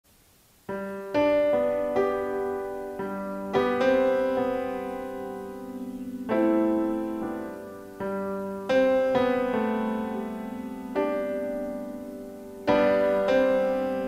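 Background piano music: slow chords struck every second or two, each left to ring and fade.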